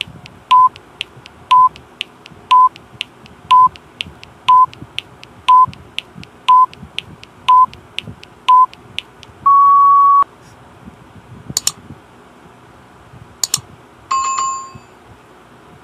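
Countdown timer sound effect: a short electronic beep once a second over a ticking about twice a second, ending in one longer, slightly higher beep. Then two sharp clicks and a short bell-like ding.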